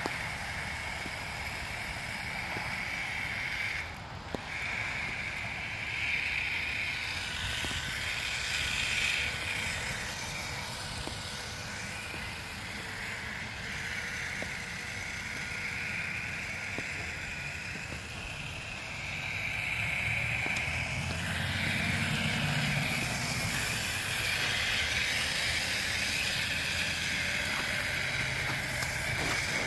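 Homemade RC 4x4 car's motor and drivetrain whining as it drives over snow and ice. The whine swells and fades with the throttle and drops out briefly about four seconds in.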